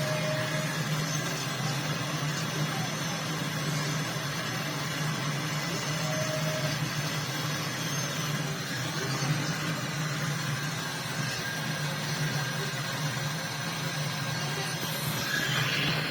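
A small motor running with a steady low hum.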